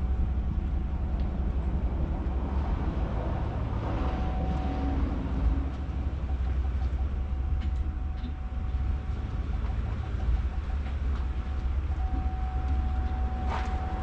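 Pickup truck engine running at low speed while reversing a boat trailer, a steady low rumble, with a thin high whine that comes and goes for a few seconds at a time.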